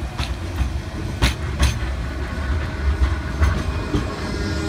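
Blackpool's modern Bombardier Flexity 2 tram running along the line: a steady low rumble with about four sharp clacks as the wheels pass over rail joints.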